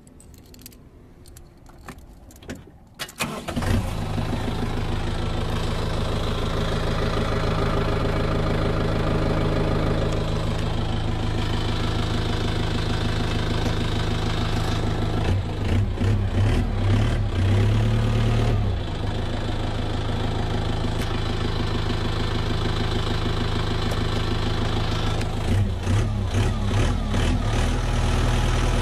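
Kubota M5040F tractor's four-cylinder diesel engine starting up after a few clicks about three seconds in, then idling steadily. It gets louder for a few seconds twice, around the middle and near the end.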